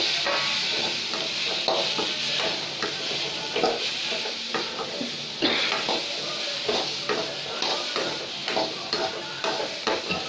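Boiled chickpeas sizzling in a metal kadai of fried onion masala as a spoon stirs them, with a steady frying hiss and irregular scrapes and knocks of the spoon against the pan.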